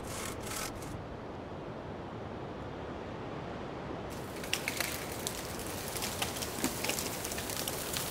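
Bow saw cutting through a tree trunk in quick strokes, about three a second, which stop about a second in. After a few seconds of low hiss, irregular cracking and snapping of wood follows as the sawn tree gives way and falls.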